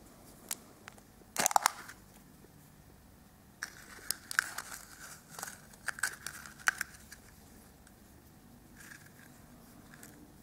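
Small plastic surprise capsule being opened and handled by hand. A sharp crackling snap comes about a second and a half in, then a run of light plastic clicks and crinkles from about three and a half to seven seconds as a small plastic toy is taken out.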